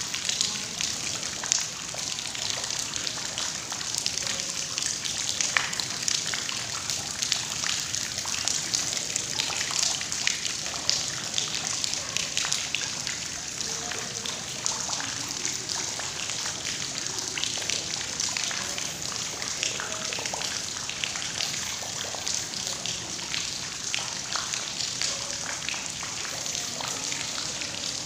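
Steady rushing and trickling water, with many small drips and ticks scattered throughout.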